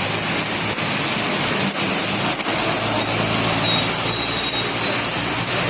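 Heavy rain pouring steadily, with a vehicle's engine humming low underneath through the middle.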